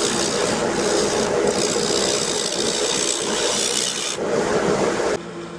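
Thompson bowl gouge cutting the outside of a spalted oak bowl spinning on a Nova wood lathe: a steady, rough shearing hiss over the lathe's hum. The cut stops suddenly about five seconds in, leaving the lathe running.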